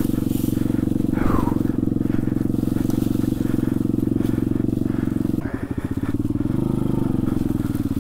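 Trailmaster TM29 pit bike's small four-stroke engine running at a steady speed. About five and a half seconds in, it drops off briefly, then its pitch wavers up and down with the throttle.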